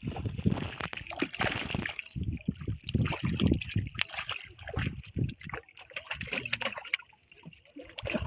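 Water splashing and sloshing beside a small boat, in irregular bursts that thin out near the end.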